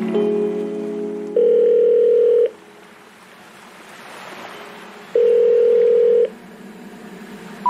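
Soundtrack music fading out, then two long, steady electronic beeps like a telephone tone, each about a second long and about four seconds apart, with soft hiss between them.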